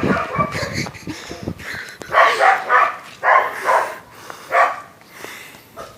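A dog barking: a run of short barks, about six of them over three seconds, beginning about two seconds in.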